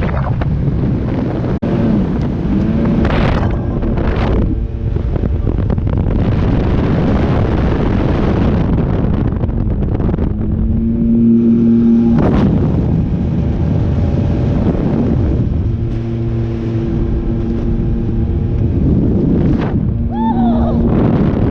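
Motorboat engine running under way, with heavy wind buffeting the microphone; its steady tone swells and fades at times. A few sharp thumps cut through.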